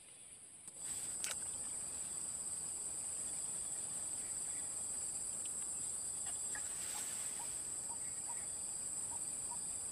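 Steady high-pitched drone of insects that comes in suddenly about a second in and holds evenly. A single sharp click follows just after, and faint short chirps repeat through the second half.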